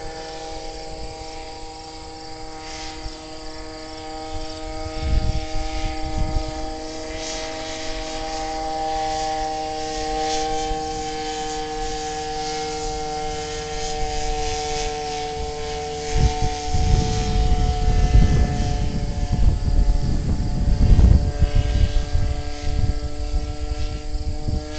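Radio-controlled model powered hang glider's engine and propeller droning steadily overhead, the pitch sagging slightly lower through the middle. Low rumbling buffets on the microphone come and go in the second half.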